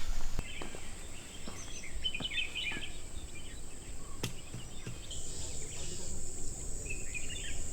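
Rainforest ambience: a steady high-pitched insect drone with scattered short bird chirps, and a single sharp click about four seconds in.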